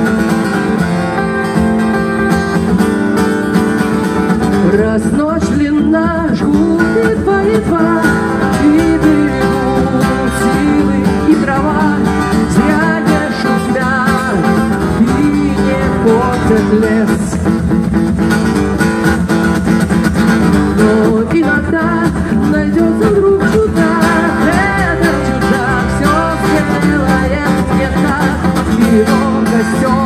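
Live song: acoustic guitar strummed while a woman sings into a microphone, played through stage speakers.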